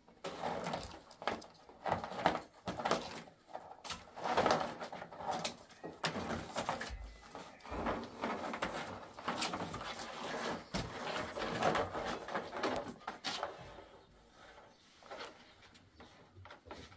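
Cardboard rustling and scraping, with a cord rubbing and pulling against it, in irregular bursts and small knocks as cardboard is lashed around a stainless steel sink.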